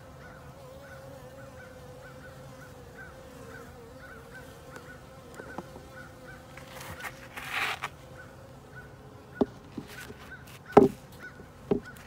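Honeybees humming steadily around an open hive-top feeder, then a short plastic scrape as the feeder lid is set back on, and a few sharp knocks near the end, the loudest about eleven seconds in, as the hive is closed up.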